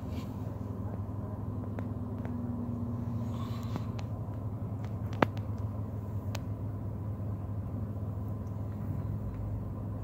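Steady low hum of a vehicle heard from inside a car cabin, with a few light clicks and one sharp click about five seconds in.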